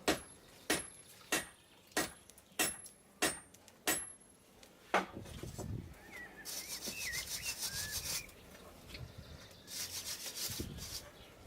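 Hand hammer striking a hot steel billet on the anvil: about seven even blows, roughly one and a half a second, each with a short metallic ring, then a single harder blow. This is followed by two stretches of scratchy rasping, like the billet being brushed or scraped clean.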